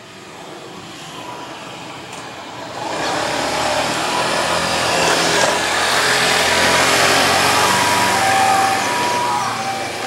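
Motor scooter engine passing close by, the loudest sound, from about three seconds in. In the second half an ambulance's two-tone hi-lo siren alternates between a higher and a lower note.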